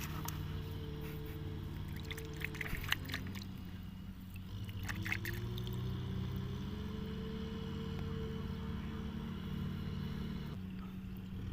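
A small motor running steadily, its pitch rising a little about five seconds in, with a few brief clicks.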